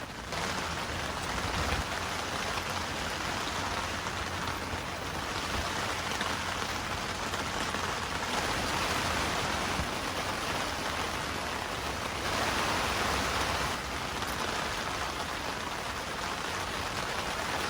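Steady rain falling, an even dense hiss that swells briefly about twelve seconds in.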